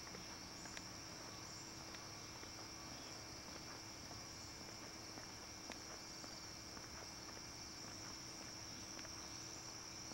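Steady high-pitched chorus of insects droning without a break, with a faint low hum beneath and a few faint ticks.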